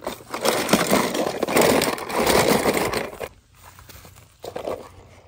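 A hand rummaging through a plastic tub of small toy cars, a dense rattling clatter of the cars knocking against each other and the tub. It stops about three seconds in, with a few fainter knocks a little later.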